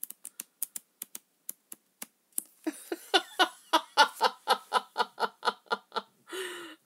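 A few sharp, light clicks of flip-book pages being thumbed, then a run of soft, rhythmic chuckling laughter, about three to four pulses a second, starting a little over two seconds in.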